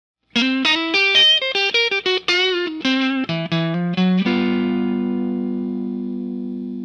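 Intro music on guitar: a quick run of plucked notes that ends about four seconds in on a held chord, which rings on and slowly fades.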